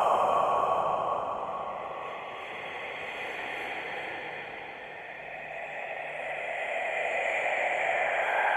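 Eerie whispering sound effect: a continuous whispery hiss with no clear words. It fades to its quietest about halfway through, then swells again.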